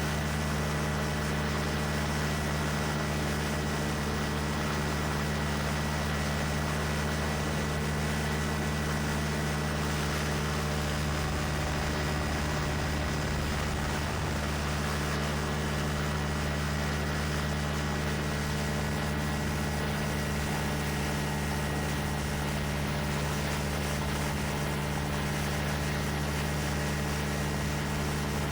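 Engine of a Quicksilver MXL II ultralight running steadily at a constant pitch, with wind rushing over the microphone.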